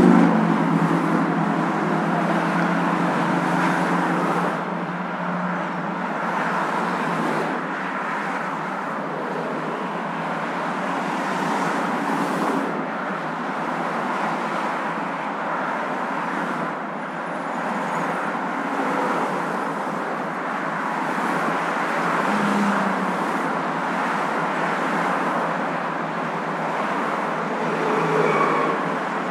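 Steady road noise of a moving car, a constant rushing hiss, with a low engine hum in the first few seconds.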